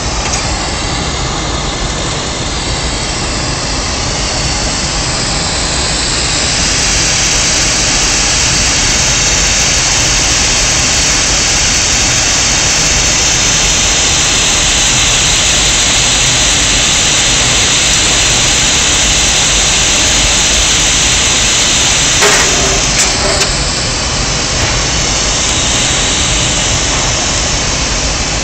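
Glass furnace burners and blowers running with a loud, steady roar, the hiss growing stronger about six seconds in and easing a little after a brief disturbance near the end.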